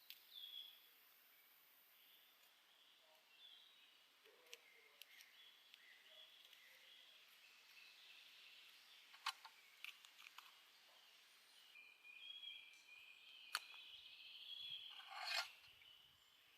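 Quiet outdoor ambience with faint, intermittent bird chirps. A few sharp clicks sound in the middle and late part. A short, louder scraping rush comes near the end.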